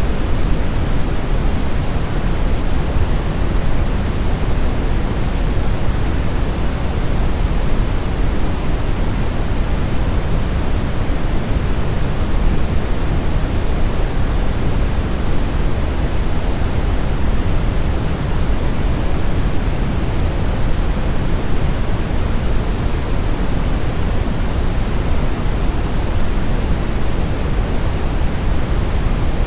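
Steady brown noise: an even, unbroken rush with most of its weight in the low end, falling off toward the treble, with no change in level.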